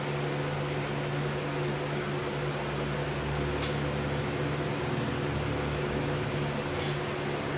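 Steady hum of an electric fan running, with a low droning tone under it. A few faint light clicks come through a little past the middle and near the end.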